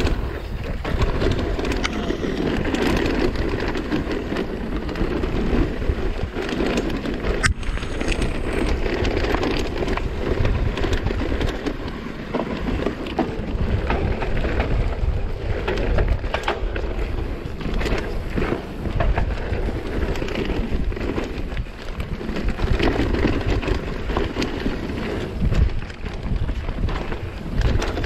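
Wind rushing over the microphone and mountain bike tyres rumbling over a dirt trail on a fast downhill run, with frequent clicks and rattles from the bike over bumps and a sharp knock about seven seconds in.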